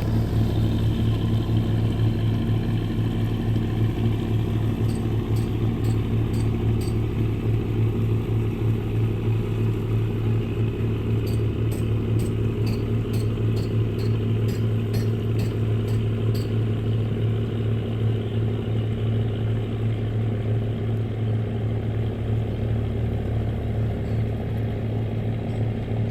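Fishing boat's engine running steadily at an even speed, a deep constant drone. Faint sharp ticks, about two or three a second, come in two short spells partway through.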